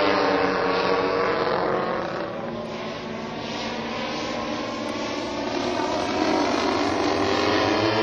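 Large radio-controlled B-29 model's four chainsaw-derived engines droning in flight, fading after the first couple of seconds as it flies off and growing louder again from about six seconds in.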